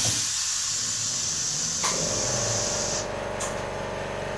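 Pneumatic screen-printing machine for woven bags: compressed air hisses loudly as its air cylinders drive the print carriage across the screen. The hiss starts sharply, loudest at first, and dies down about three seconds in. A steady motor hum starts about two seconds in.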